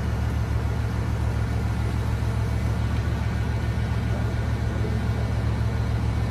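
Bugatti Veyron's quad-turbocharged 8.0-litre W16 engine idling, a steady low drone.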